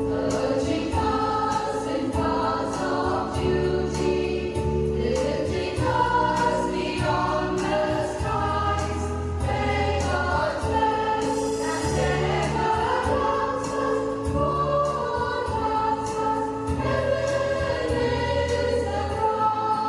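A choir of voices singing a hymn-like congregation anthem together, over an instrumental accompaniment of held bass notes and a sustained chord.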